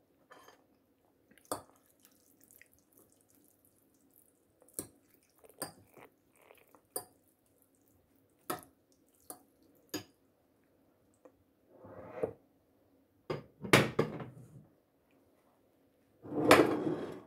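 Metal fork clinking against a glass bowl while stirring noodles in broth: a string of separate sharp ticks. In the second half come three longer, louder scuffing noises, the loudest near the end.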